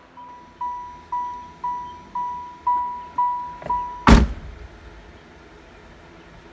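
Saturn S-Series warning chime pinging about twice a second, each ping fading away, then a car door thuds shut about four seconds in and the chiming stops.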